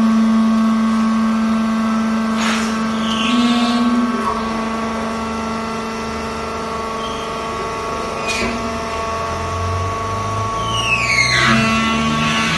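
Vertical hydraulic baler's power unit, an electric motor driving the hydraulic pump, running with a steady hum that comes on suddenly. Near the end there are a few high, falling squeals, and the hum starts to rise in pitch.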